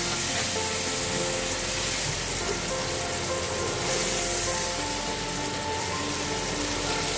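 Chopped tomatoes and spices sizzling steadily in hot oil in a pan, under background music with long held notes.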